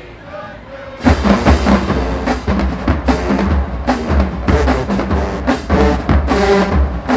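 Marching band playing: after a quieter first second, the full band comes in loud about a second in, with bass drums and snares hammering a fast rhythm under sustained horns.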